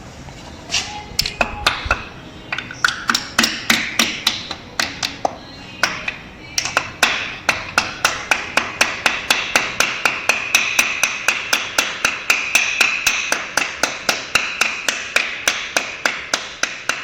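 Light hammer taps seating the rear cam drive seal and spacer into a sprint car's 410 cubic inch engine: a few scattered taps, a short pause about six seconds in, then a steady run of about three to four light strikes a second.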